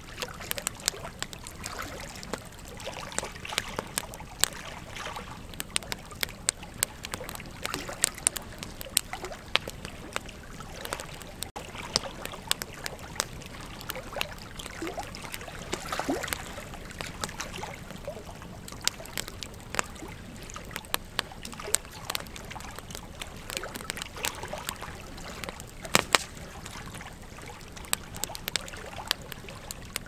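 Bonfire crackling: frequent sharp snaps and pops of burning wood, a few of them much louder, over a steady rush of flames.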